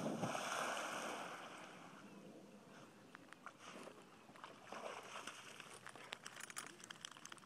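A dog hitting the water of a pond with a big splash right at the start, the spray and churning water dying away over about two seconds. Later come smaller, scattered splashes and drips as it swims to the bank and climbs out.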